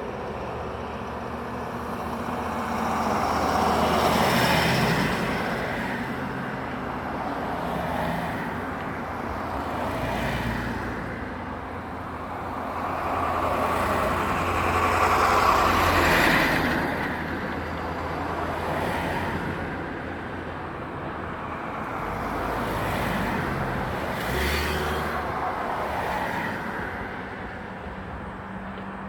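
Road traffic: vehicles pass one after another, each swelling and fading, about three times, over a steady low rumble.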